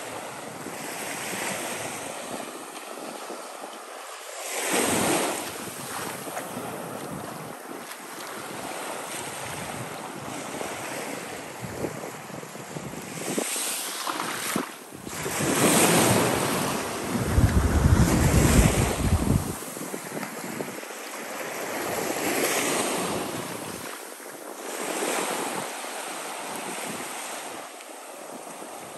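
Small surf washing up a sandy shore, the rush swelling and easing every few seconds, with wind on the microphone. A little past halfway a gust rumbles on the microphone for about two seconds, the loudest moment.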